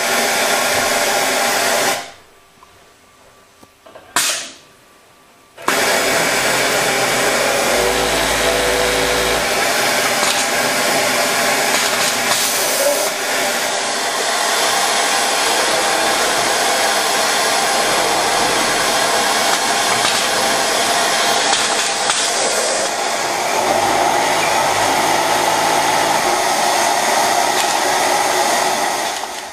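EWS 6200 heel tape sewing machine with a Kansai multi-needle head running at speed: a loud, steady mechanical whir. It stops about two seconds in, gives a short burst, then starts again and runs on.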